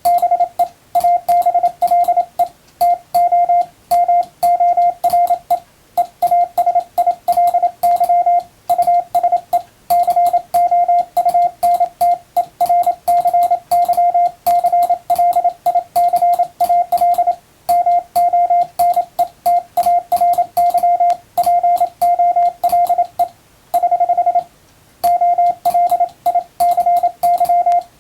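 Morse code sent with an electronic keyer: a single steady beep tone keyed rapidly on and off in dots and dashes, spelling out English plain text, with short pauses between words and a faint click at each element.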